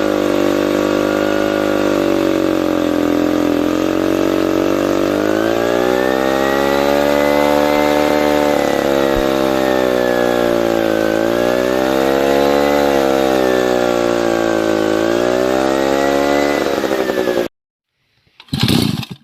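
Vintage Stihl two-man chainsaw engine running, its pitch held steady at first and then rising and falling several times as the throttle is opened and eased off. It cuts off abruptly a couple of seconds before the end.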